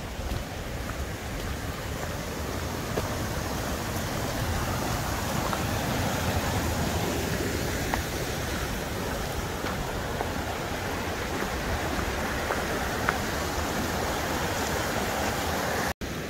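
Mountain creek rushing over rocks in a steady wash that grows louder over the first few seconds as the trail nears it, with a few faint footstep crunches on the gravel path.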